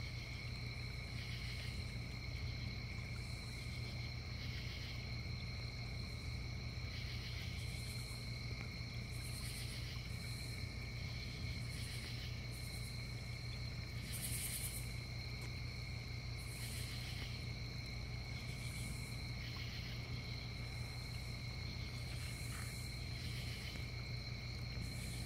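Night crickets and other insects chirping: a steady high trill with a pulsing chirp repeating about every second and a half, and scattered higher buzzes. Beneath them runs a low, steady trickle of water from a pond.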